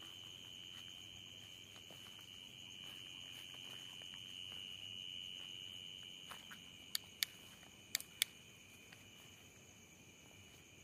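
Night insects, such as crickets, trilling steadily in one high continuous tone, with a few sharp clicks about seven to eight seconds in.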